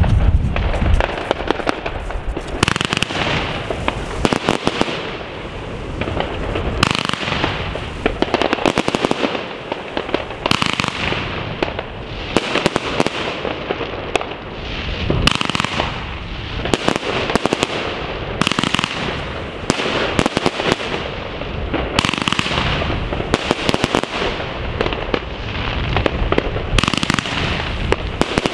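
Evolution Fireworks Mega Willow 108-shot 30 mm compound cake firing at a fast tempo: a dense run of sharp shots and bursts coming in volleys, each followed by a hissing wash, with hardly any loud bangs among the effects.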